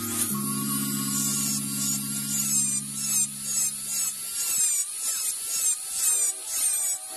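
Small rotary tool with a thin cut-off disc grinding into the die-cast metal body of a toy car, a high-pitched whine that dips in pitch again and again as the disc is pressed in, with the loudness pulsing two or three times a second.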